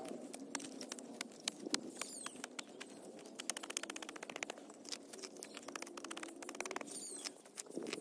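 A metal hand tool digging and scraping into dry, gravelly soil, with earth and small stones crumbling away: quick gritty scratches and clicks, in dense runs about halfway through and again near the end.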